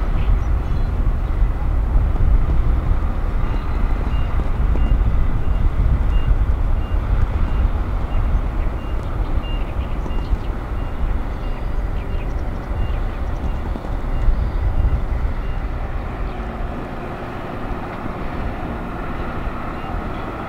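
Heavy tractor-trailer truck's diesel engine running as it hauls a low-loader carrying a railcar, with a steady low rumble. A vehicle warning beeper sounds regularly, about twice a second, from a few seconds in until about three quarters of the way through.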